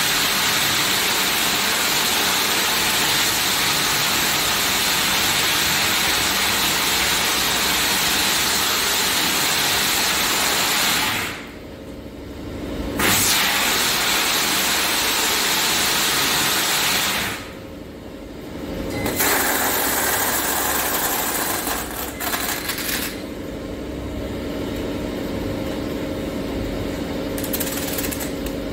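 BOPP tape slitting machine running, a loud steady rushing noise that drops away suddenly twice, briefly, about 11 and 17 seconds in. In the latter part it is quieter, with a steady hum.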